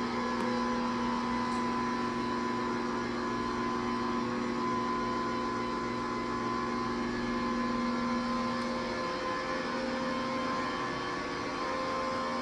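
Corded dual-spin wet mop's electric motor running with a steady hum, its pitch shifting slightly about nine seconds in as the load on the spinning pads changes.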